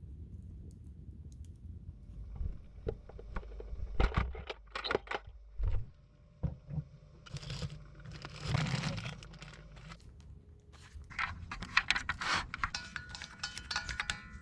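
Irregular clicks, light clatters and short scraping and rustling sounds of cooking gear and packaging being handled, starting about two seconds in.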